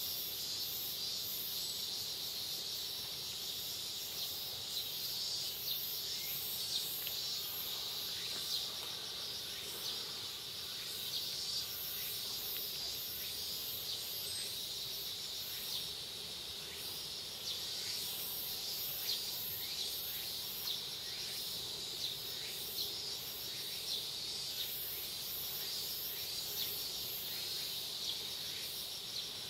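Steady high-pitched drone of insects, with small ticks now and then.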